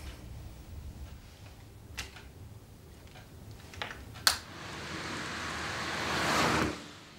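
Low hum with a few faint clicks, then one sharp click about four seconds in. A rushing noise follows, swelling for about two seconds and then cutting off abruptly.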